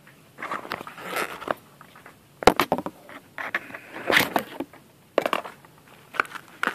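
Cardboard product boxes being handled and shifted about, with rustling and scraping and a few sharp knocks; the loudest knock comes about two and a half seconds in.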